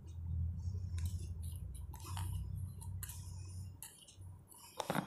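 Faint, scattered small clicks and ticks from hands working thick face-mask paste out of a plastic bowl and onto the face, over a low steady hum that fades out about four seconds in. One sharper click comes just before the end.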